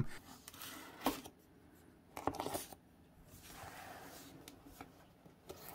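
Hobby knife cutting the seal on a cardboard box, faint scratching with a few sharp clicks, then a soft rustle of the cardboard being handled.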